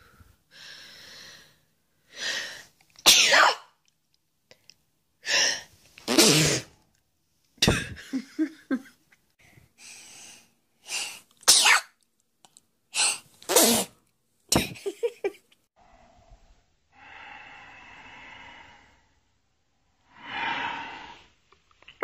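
A woman sneezing over and over, about six sharp sneezes, several with a drawn-in breath just before. The sneezes are forced, brought on by tickling inside the nostril with a thin metal tool.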